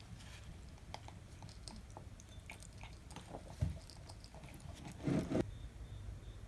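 A cat chewing, with scattered small crunching clicks, a low thump about three and a half seconds in and a louder rustle about five seconds in.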